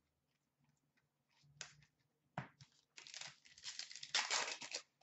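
Hockey card pack wrapper being torn open and crinkled: two short rips, then a longer stretch of tearing and crinkling from about three seconds in.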